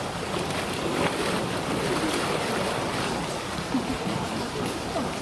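Steady rush and slosh of water in a polar bear pool, with faint voices of onlookers in the background.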